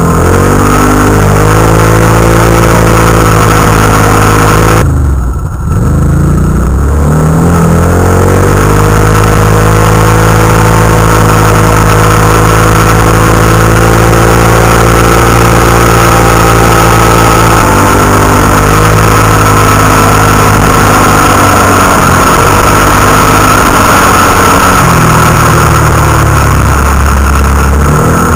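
Can-Am Renegade ATV's V-twin engine running hard under throttle, heard from on board. About five seconds in the throttle is briefly let off and the revs drop, then climb back. The revs shift a few more times and settle lower near the end.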